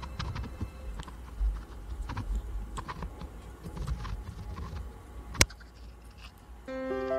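Thin wire being wound around the split tip of a flat-blade screwdriver: scattered small clicks and ticks of wire against the metal, with one sharper click about five seconds in. Piano music comes in near the end.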